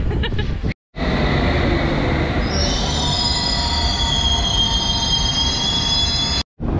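London Underground train running, with a loud steady rumble; its wheels start squealing on the rails about two and a half seconds in, in several high shrill tones that hold on.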